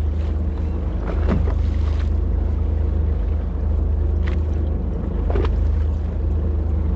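Fishing boat's engine running steadily with a low hum, a few brief faint sounds briefly rising over it.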